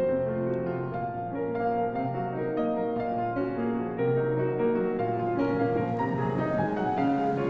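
Piano music with a string of slow, held notes. A faint hiss comes in under it near the end.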